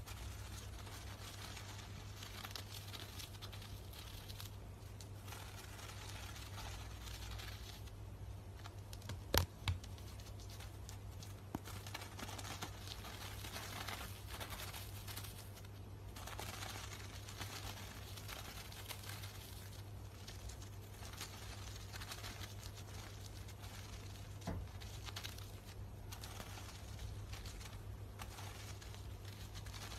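Chipmunk tearing and crumpling toilet paper with its teeth and paws: soft papery rustling and crinkling that comes and goes, over a steady low hum. A sharp click about nine seconds in, and a fainter one later.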